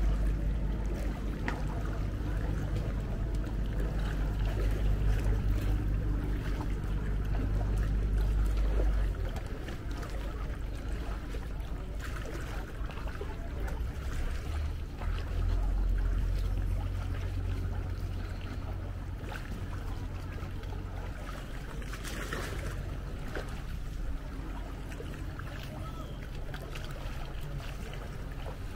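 Canoe paddle strokes splashing and dripping in calm sea water, over a low rumble that is strongest for the first nine seconds and briefly again in the middle.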